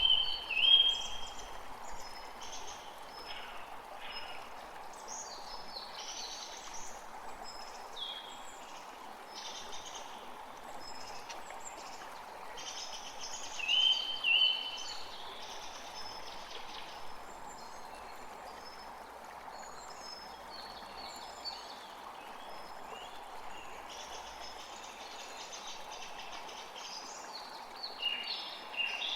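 Small forest creek flowing steadily, with several birds calling and singing over it. Short, loud two-note calls stand out near the start, about midway, and again near the end.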